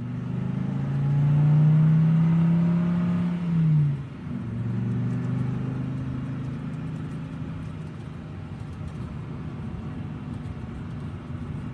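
Vehicle engine driving over a gravel track. It climbs in pitch as it accelerates, drops sharply at a gear change about four seconds in, then runs steadily in the next gear.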